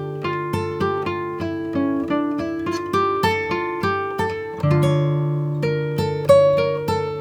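Background music: an acoustic guitar picking a melody of plucked, ringing notes over held bass notes, about three notes a second.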